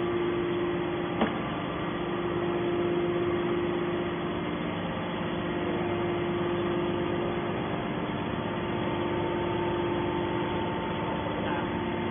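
Steady hum of a hydraulic scrap metal baler's motor and pump running idle, with one sharp click about a second in.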